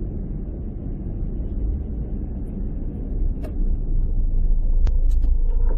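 Steady low vehicle rumble that grows a little louder in the second half, with a few sharp clicks.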